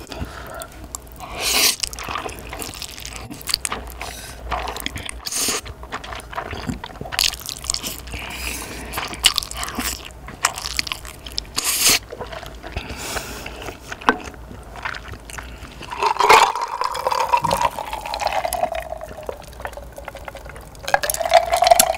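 Close-up eating sounds: Carbo Buldak stir-fried noodles slurped and chewed off chopsticks in a series of short slurps. In the last several seconds there are louder, drawn-out gulps of cola drunk from a glass jar mug.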